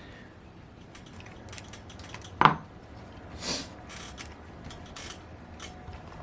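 Small metal tools and model-engine parts clicking, tapping and scraping during disassembly, with one louder knock about two and a half seconds in and a brief scrape a second later.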